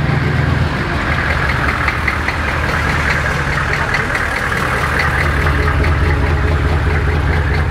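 Hummer H1's V8 engine idling steadily at close range, with crowd chatter behind it.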